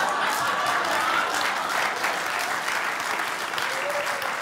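Theatre audience applauding and laughing: dense clapping from a large crowd, easing slightly toward the end.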